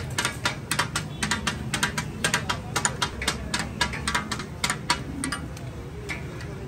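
Rapid, irregular clicking and clinking of metal utensils at a street-food griddle stall, thinning out about five seconds in, over a low steady background rumble.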